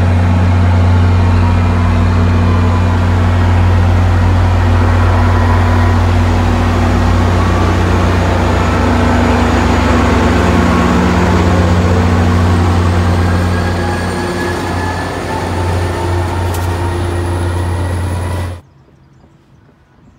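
MBTA commuter rail train passing close at speed: coaches rumbling over the rails, then the diesel locomotive at the rear with a steady low engine drone. A few faint rising squeals are heard from the wheels. The sound cuts off abruptly near the end.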